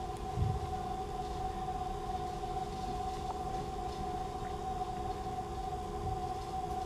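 A steady drone of several held tones that does not change, with a few soft low thuds, the clearest about half a second in.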